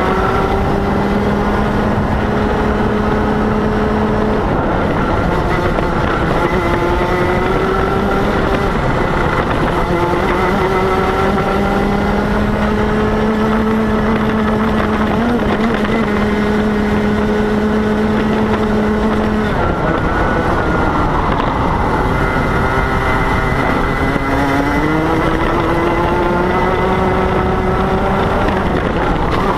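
Rotax Senior MAX kart's 125cc single-cylinder two-stroke engine at racing speed. It climbs in pitch down each straight, holds near top revs, then drops back as the driver lifts for corners, several times over.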